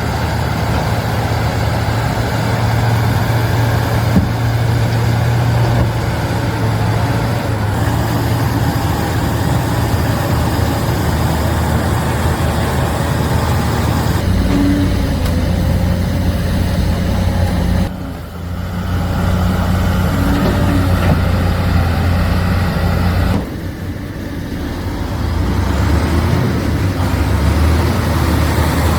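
Heavy diesel engines of earthmoving machines running with a steady low engine note. The sound changes abruptly three times, once about halfway through and twice more later.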